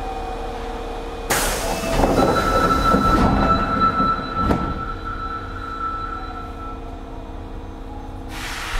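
Osaka Metro 25 series subway train starting away from a station, heard from inside the car. A sudden hiss comes about a second in, then a steady high whine rides over the low rumble of the running gear for several seconds. A short click comes in the middle and another hiss near the end.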